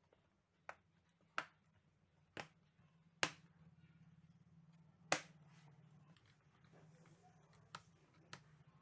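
A series of about seven short, sharp clicks at uneven intervals, over a faint steady low hum that comes in about three seconds in.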